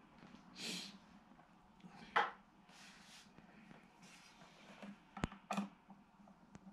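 Small handling noises: soft rustles and scrapes with a few sharp clicks, one of them about five seconds in, as small parts are worked by hand.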